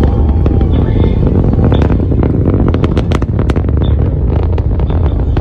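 SpaceX Falcon Heavy's 27 Merlin kerosene engines heard from miles off through fog: a deep, steady rumble with rapid sharp crackling, the crackle thickest from about two to three and a half seconds in.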